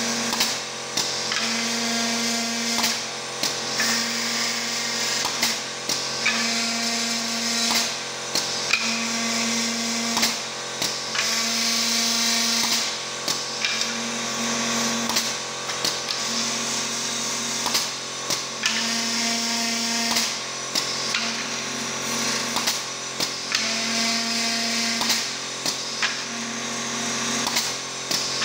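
Automatic beehive-frame drilling machine running with several drills at once: a steady motor hum under a repeating cycle of about one frame every two seconds, each a drilling whine lasting about a second, separated by sharp clicks as the next frame comes into place.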